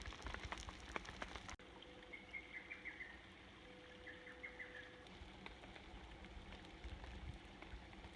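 Rain pattering in dense drops, then after a sudden cut a wild bird calling in short chirps, twice, over faint light rain.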